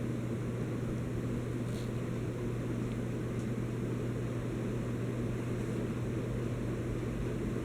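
52-inch SMC ceiling fan running, a steady low motor hum under the rush of air from its four blades, with a couple of faint ticks.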